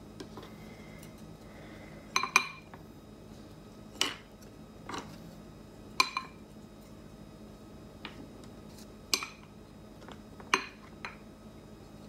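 A metal fork and a white soup spoon clink against a glass bowl: a handful of short, sharp clinks every second or two, some in quick pairs.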